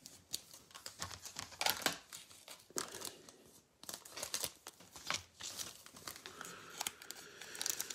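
Foil wrapper of a basketball trading-card pack crinkling in irregular crackles as it is handled and cut open with scissors.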